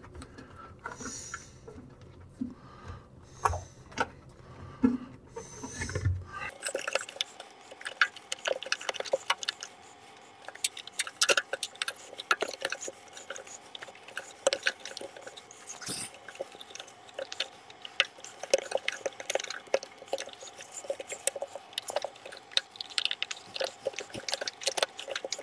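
Hands working a front-loading washer's rubber door seal into place: scattered small clicks, taps and rubbing as the rubber is pushed and popped onto the metal lip, with a faint steady hum behind.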